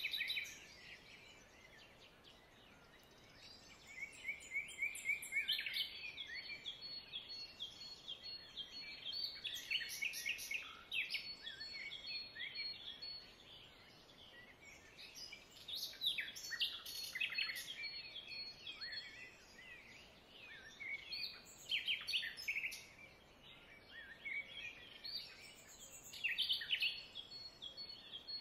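Small birds chirping and trilling, in bouts of a few seconds with short lulls between.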